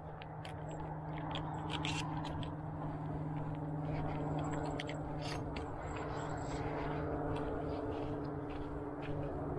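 Footsteps crunching on gravel and dirt, irregular, over a steady low hum.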